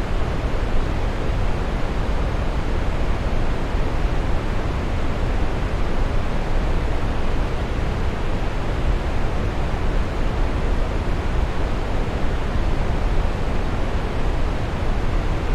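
Waterfall: a steady, unbroken rush of falling water, heaviest in the low rumble.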